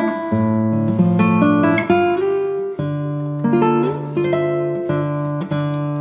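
Instrumental background music of plucked acoustic guitar notes.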